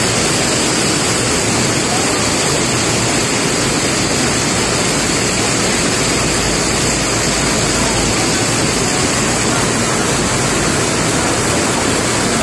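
Steady rain falling, a continuous even hiss of water with no thunder.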